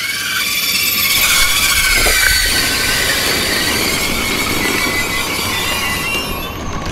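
Regional TER passenger train running through the station with a high metallic squeal of steel wheels on rail: several shrill tones held over a low rumble.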